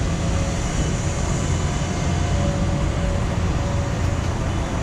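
Steady low rumble of city street traffic mixed with wind against a fur-windscreened microphone, with a faint steady tone running through it.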